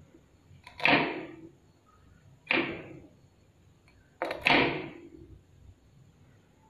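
A knife scraping and cutting along a small fresh fish as it is scaled and trimmed: three short scraping strokes, roughly two seconds apart, each starting sharply and fading quickly.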